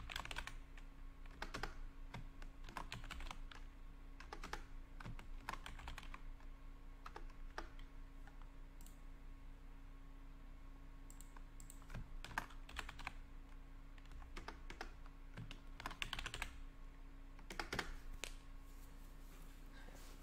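Typing on a computer keyboard in quick bursts of keystrokes with short pauses between them and a lull in the middle.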